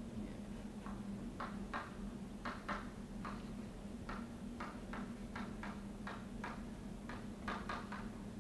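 Short, irregular tapping strokes of a lecturer writing equations on a board, about twenty in all, over a steady low room hum.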